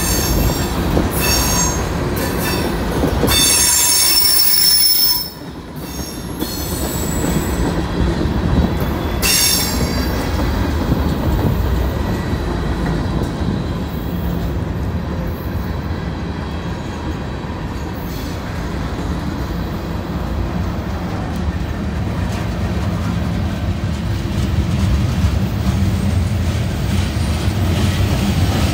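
Freight cars rolling past on steel rails. High-pitched wheel squeal with several tones fills the first few seconds and breaks off suddenly about five seconds in. After that comes a steady rumble of wheels on track, with one brief squeal again near ten seconds.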